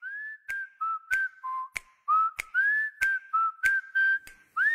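A whistled tune, one note line rising and falling, over sharp clicks on a steady beat of a little under two a second.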